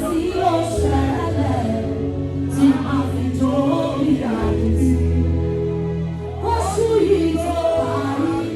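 Gospel song sung live over instrumental backing, with sustained low bass notes under the voice and a bright wash up high about every two seconds.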